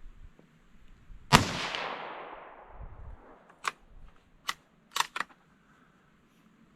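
A single shot from a Savage 93R17 bolt-action rifle in 17 HMR, a sharp crack followed by a long fading echo. After it come four sharp, quieter clicks as the bolt is worked to eject the case and chamber the next round.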